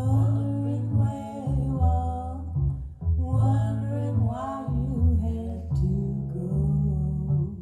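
A recorded song played back over B&W 802 Nautilus hi-fi loudspeakers in a room: a sung vocal line over plucked double bass and guitar.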